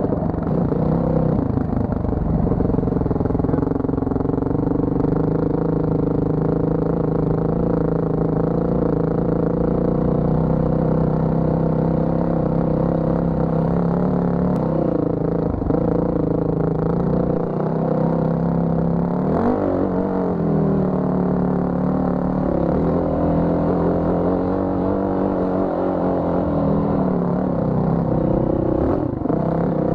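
Dirt bike engine running while riding a trail, its pitch dipping and rising as the throttle is worked, most sharply about halfway through.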